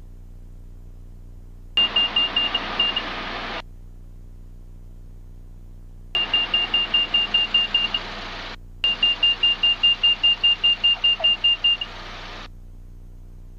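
Rapid, high beeping warning tone from the light aircraft's audio system, about six beeps a second in three bursts (about two seconds in, about six seconds in, and from about nine seconds to near twelve), each burst coming with a rush of cabin noise that cuts in and out with it. It is typical of the stall warning sounding as the plane flares and touches down.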